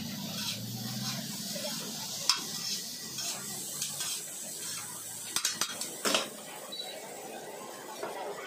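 Metal spatula scraping and clinking against a wide flat griddle as egg noodles are stir-fried over a steady sizzle, with a sharp clink about two seconds in and a cluster of clinks between five and six seconds in.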